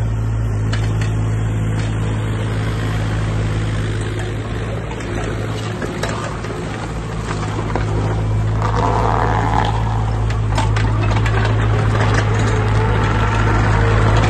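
JCB 8026 CTS mini excavator's diesel engine running steadily as the machine slews and tracks. Clanks and rattles from the moving machine grow louder over the last several seconds as it drives up close.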